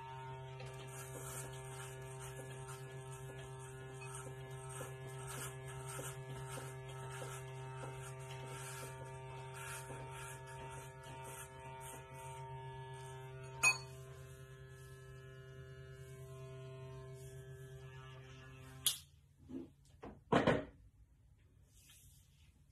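Electric hair clippers buzzing steadily as they are run over a close-shaved scalp, then switched off about nineteen seconds in. A few sharp knocks follow near the end.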